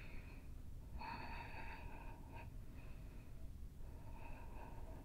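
Faint, slow deep breaths, each drawn-out inhale or exhale lasting about a second.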